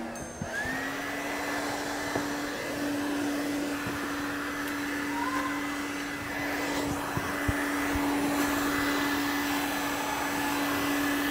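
Vacuum cleaner motor spinning up just after the start, then running steadily at an even pitch with a constant airflow hiss.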